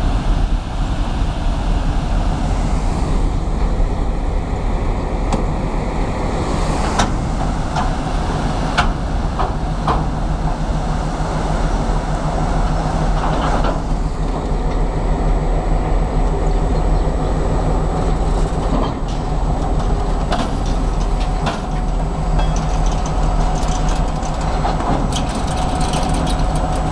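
Train of POM-025/POM-026 snowplow cars rolling past, steel wheels clicking over rail joints at intervals, over the steady low drone of a 2M62 two-stroke diesel locomotive.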